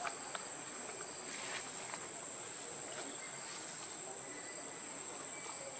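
Insects calling in a steady, high-pitched drone, with a few faint clicks over it.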